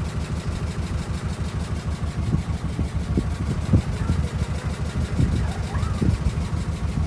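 A small tour boat's motor running steadily, a low, evenly pulsing engine sound.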